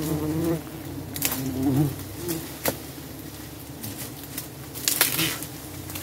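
Giant honey bees buzzing as they fly close past the microphone, the pitch wavering as each one passes, with a few sharp knocks and crackles in between.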